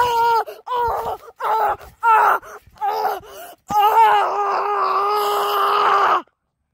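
A boy yelling with his mouth wide open: a string of short, high-pitched shouts, then one long held yell that cuts off suddenly about six seconds in.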